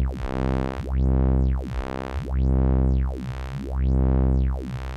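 A sustained synthesizer note from FL Studio's 3x Osc, played through the Vintage Phaser with a sine-wave LFO. The phasing sweeps smoothly up and down about every one and a half seconds, and the tone swells and dips in volume with each sweep.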